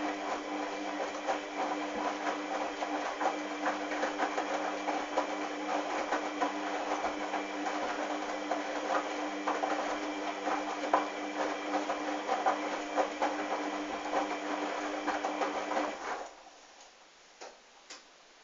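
Hoover washing machine drum tumbling a load of towels: a steady motor hum with towels and water sloshing and clattering inside, which stops abruptly about 16 seconds in, leaving only a couple of faint clicks.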